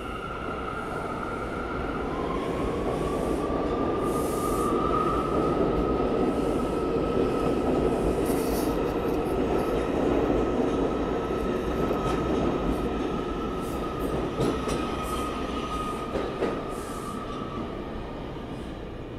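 New York City subway train running through a station, its rumble swelling and then easing. A steady high-pitched wheel squeal is held almost throughout, and a few sharp clicks come in the second half.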